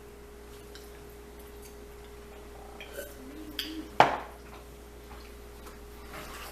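Light clicks of cutlery and dishes, with one sharp knock about four seconds in, over a steady faint hum.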